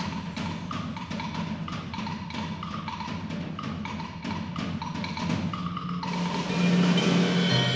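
Percussion ensemble playing live: a steady pattern of crisp struck clicks and short high notes over a low sustained tone. About six seconds in it swells louder as ringing, sustained notes come in.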